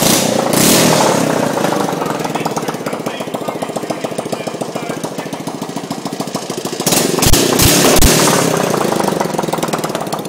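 Honda Cub 90 single-cylinder four-stroke engine running with no exhaust fitted, a fast, even chain of open-port firing pulses. It is revved up briefly twice, right at the start and again about seven seconds in, with a few low knocks during the second rev.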